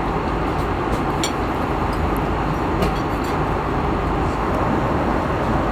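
Steady roar of airliner cabin noise in flight, engine and airflow noise heard from a passenger seat, with a few faint clicks on top.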